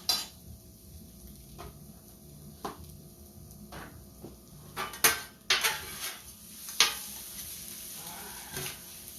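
Metal cooking utensils clanking sharply against a hot pan, about eight times. About halfway through, food starts sizzling in the pan, and the sizzle carries on under the clanks.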